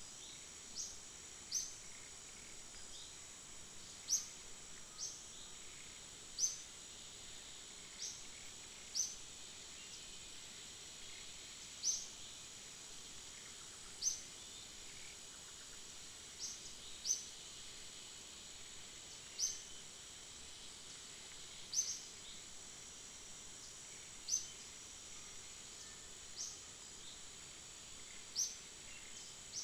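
Outdoor ambience of insects keeping up a steady high-pitched drone. Over it, a bird gives short sharp high chirps, each dropping in pitch, repeated irregularly every second or two.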